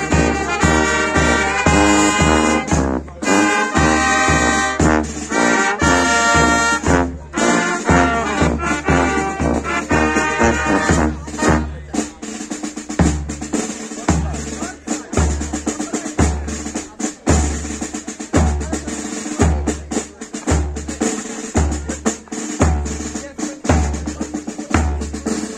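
A brass band playing a march tune over bass drum and snare. About halfway through, the brass stops and the drums carry on alone, with an even bass-drum beat a little more than once a second and snare strokes and rolls in between.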